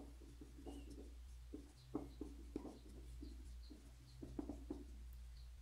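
Marker pen writing on a whiteboard: short, irregular taps and strokes of the felt tip, over a steady low hum.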